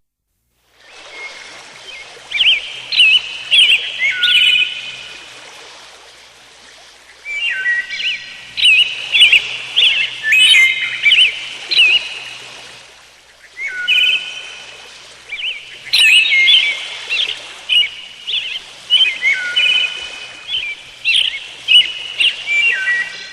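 A songbird singing, its quick whistled and warbled phrases coming in four bouts of several seconds each over a faint steady hiss, starting about a second in.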